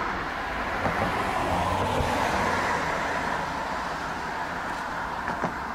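Diesel train running in the distance as it approaches, a steady engine rumble.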